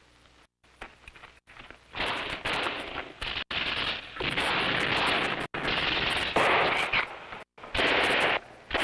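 Tripod-mounted machine gun firing long bursts of automatic fire, starting about two seconds in: three bursts of one and a half to two seconds each, then two short ones near the end.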